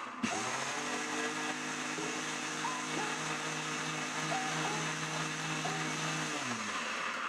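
Electric blender running steadily, blending dates with milk, then switched off about six seconds in, its motor pitch falling as it winds down.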